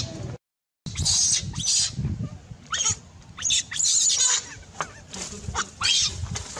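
Baby monkey screaming in short, high-pitched calls, several a second, with a brief silent gap about half a second in.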